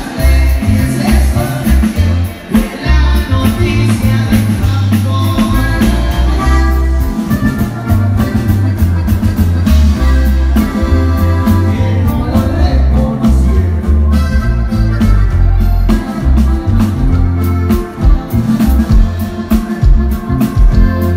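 Live norteño band playing over a PA: a button accordion melody over guitar, electric bass and drums, with a steady driving beat.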